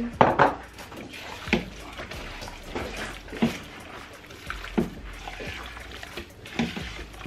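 A gloved hand squeezing and turning raw chicken pieces through a thick, wet yogurt marinade in a large pot, giving irregular wet squelches about once a second.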